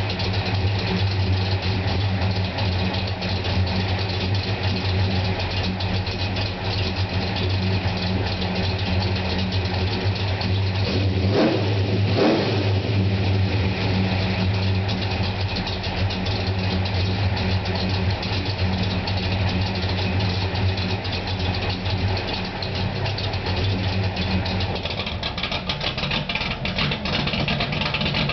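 Pontiac GTO's V8 idling steadily through its exhaust, with one quick blip of the throttle about eleven seconds in. Near the end the deep low rumble drops away.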